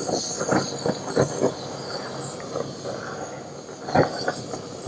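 Steady hiss of a handheld butane blowtorch flame held over Pernod-soaked hay and wood smoking chips in a clay pot, to set them alight. Scattered short crackles and clicks run through it, one stronger about four seconds in.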